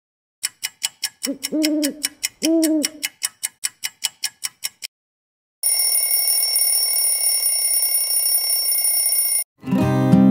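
Night-time sound effects: steady ticking with two owl hoots, then an alarm clock ringing for about four seconds that cuts off suddenly. Acoustic guitar music starts near the end.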